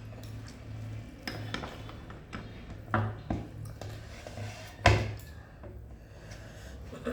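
Sounds of eating from a plate: a few sharp knocks and clinks against the dish, the loudest about five seconds in, over a steady low hum.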